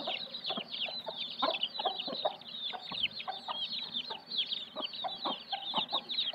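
Chickens: a continuous chorus of high, quick, falling chick peeps, with short low clucks scattered through it.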